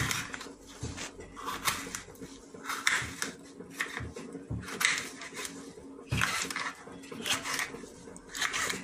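Kitchen knife cutting a red kapya pepper into pieces on a wooden cutting board: irregular knocks of the blade on the board, about one or two a second.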